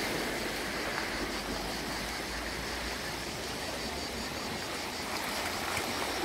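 Small sea waves washing over shoreline rocks: a steady, even hiss of water.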